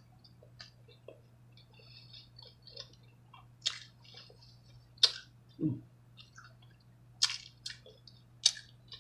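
Close-miked chewing of a birria hard-shell taco: wet mouth smacking with crisp crunching clicks, a handful of sharper crunches spread through. There is a brief low hum about halfway.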